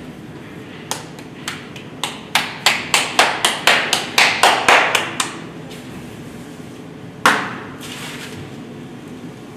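Hands patting a ball of fresh corn masa between the palms: a run of about fifteen sharp slaps that come faster as they go, then one more slap a couple of seconds later.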